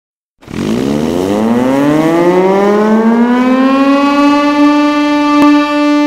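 The siren of the destroyer HMCS Haida, sounding as a hockey goal horn to signal a goal. It starts about half a second in, winds up in a rising wail for about four seconds, then holds a steady, loud note.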